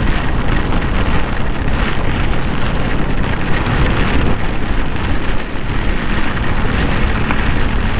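Steady rush of wind and heavy rain on a motorcycle moving at speed.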